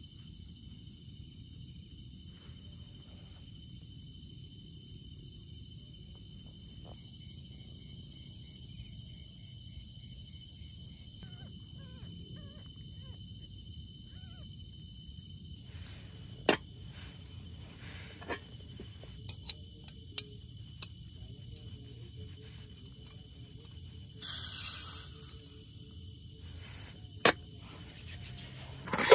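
Night insects, crickets among them, trilling steadily at several high pitches over a low ambient rumble. In the second half a few sharp clicks or taps stand out, and near the end a brief rustle.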